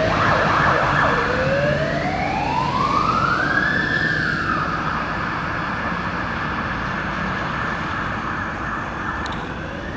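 Fire engine siren on a departing truck, switching from a fast yelp to a slow wail about a second in. The wail rises over about three seconds and holds high, then starts another rise near the end, growing fainter as the truck drives away.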